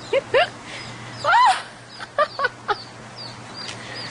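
Chicks calling while they squabble over a worm. There are short rising-and-falling calls: two near the start, a louder one about a second in, a quick run of four in the middle, then small high chirps toward the end.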